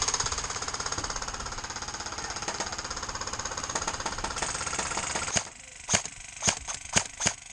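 Airsoft gunfire: a long burst of rapid full-auto fire, about ten shots a second, stopping about five seconds in, then five sharp single shots in quick succession.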